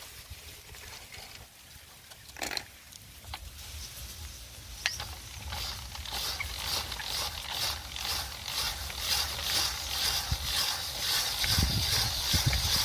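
Ice being shaved for an ice gola: a rhythmic scraping hiss at about three strokes a second that starts about halfway in and grows louder, with a few low knocks near the end.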